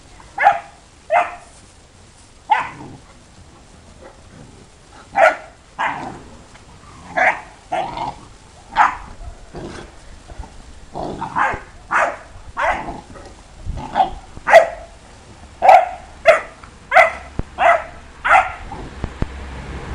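Fila Brasileiro dog barking repeatedly: single short, sharp barks in irregular runs, coming quicker in the second half.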